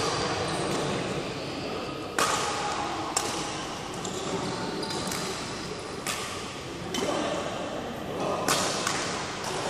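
A ball being kicked in play: about five sharp smacks, one to three seconds apart, each ringing on in the echo of a large hall.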